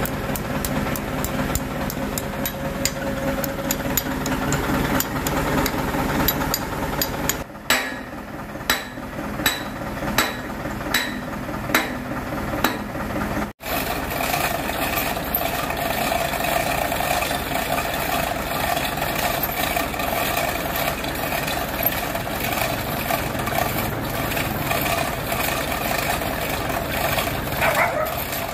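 Repeated sharp metal strikes, like hammer taps, about one every 0.7 s over a steady engine hum. After a sudden break, a steady mechanical running noise with no strikes.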